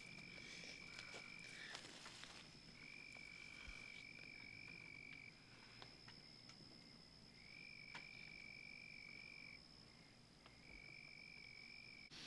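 Faint night-time chorus of frogs and insects: one high, steady trill runs throughout, while a lower trill comes and goes in four stretches of about two seconds each.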